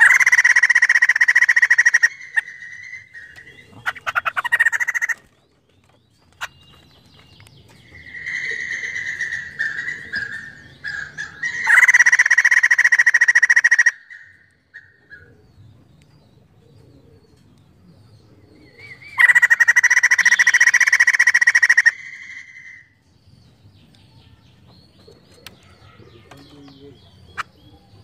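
White-crested laughingthrush calling in three loud, harsh bursts of two to three seconds each, near the start, in the middle and later on, with softer shorter calls in between.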